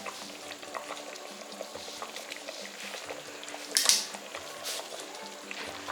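Pot of soup bubbling and crackling on the stove as it is stirred, with one short, louder rasp about four seconds in.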